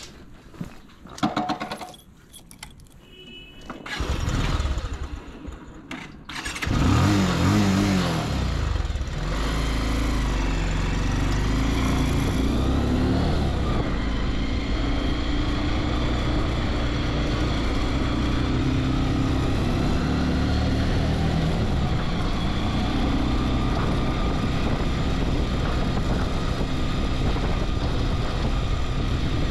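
Pulse 180 motorcycle's single-cylinder engine being started: a few small clicks, the starter turning it over, and the engine catching about six and a half seconds in with a quick rev. It then runs steadily as the bike rides off.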